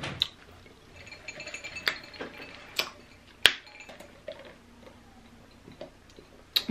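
Lidded foam drink cup with a straw being handled and lifted for a sip: a handful of sharp clicks and clinks, the loudest about three and a half seconds in, with a faint squeak early on from the straw in the lid.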